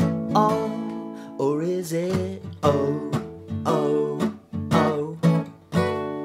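Acoustic guitar strummed in a steady rhythm, about two chords a second, with a man's voice briefly singing along over it.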